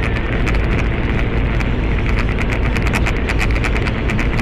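Car driving at speed heard from inside the cabin: a steady engine and road rumble with rapid, irregular ticking on top.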